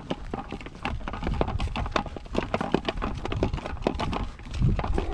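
Footsteps of people walking on a trail: a string of short, irregular steps and knocks.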